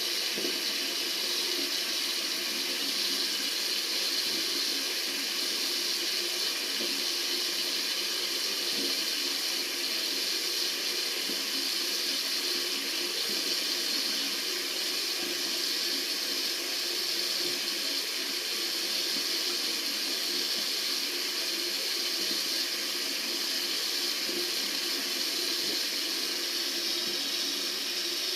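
Tap water running steadily from a faucet into a sink, an even, unbroken rush of water.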